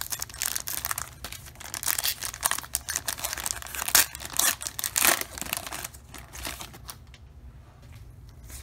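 Foil wrapper of a trading-card pack crinkling and tearing as it is opened, with the loudest crackles about four and five seconds in. Quieter handling follows near the end.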